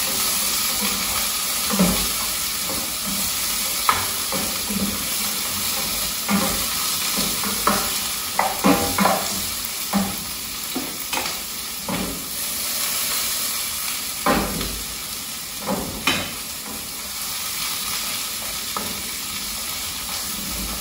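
Sliced onion frying in hot oil in a skillet: a steady sizzle, with irregular knocks and scrapes of the utensil against the pan as the onion is stirred, most frequent in the middle.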